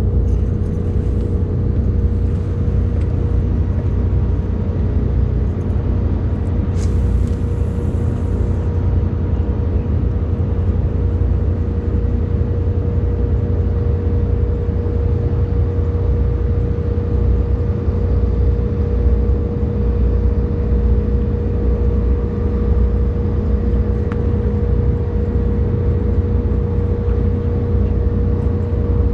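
Small boat motor running at a steady speed: a heavy low rumble with a constant hum that does not change pitch.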